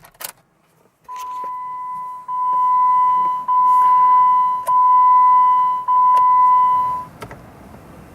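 Jeep Wrangler JK's dashboard warning chime sounding a steady high beep for about six seconds, in repeated tones of about a second each with short breaks between them; it gets louder after the first tone.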